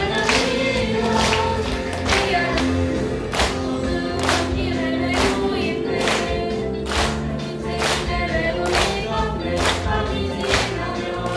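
A group of young singers singing together in chorus over amplified accompaniment, with sustained bass notes and a steady beat about once a second.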